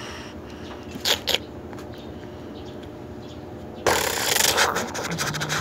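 Plastic building bricks of a toy brick-built gun being handled: two sharp clicks about a second in, then from about four seconds in a louder rustle and clatter of plastic pieces with many small clicks.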